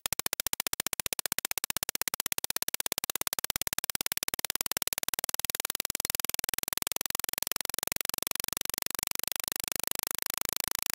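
Countdown-timer ticking sound effect: fast, evenly spaced clicks, about ten a second, with a hiss growing stronger beneath them from a few seconds in.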